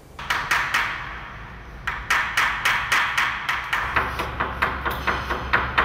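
Hammer tapping in quick, even strokes: a few knocks, a short pause, then a steady run of about four a second.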